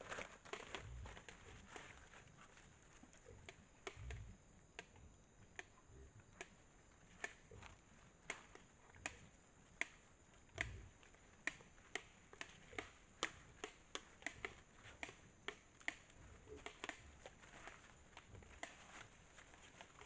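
Sharp, irregular cracking clicks, a couple a second and thicker in the second half, from animals chewing hard corn kernels at a bait site, with a few dull low thumps.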